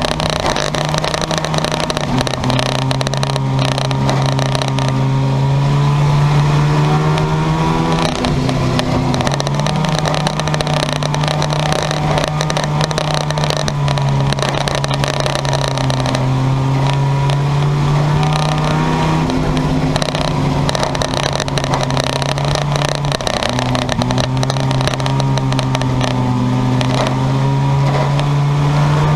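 Engines of junkyard race cars running hard around the track. Their note drops and climbs again about every seven seconds as the cars lift for the turns and accelerate down the straights.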